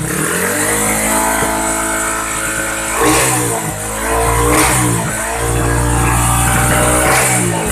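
Honda Dash motorcycle engine with an open exhaust pipe being revved in repeated blips, the revs rising and falling and held high for a couple of seconds. A few sharp cracks from the exhaust mark the pipe popping.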